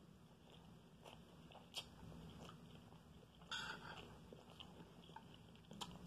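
Quiet eating sounds: soft chewing and mouth clicks, with a spoon scooping fried rice off a plate in a brief scrape about halfway through.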